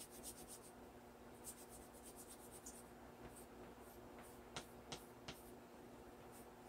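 Chalk rubbed in quick back-and-forth strokes over the back of a sheet of paper, faint and scratchy, with a few light clicks about two-thirds of the way through.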